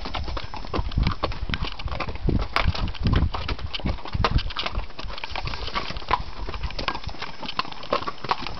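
Mules' hooves clip-clopping at a walk on a rocky trail: an irregular, steady run of sharp hoof strikes, with heavier low thuds in the first half.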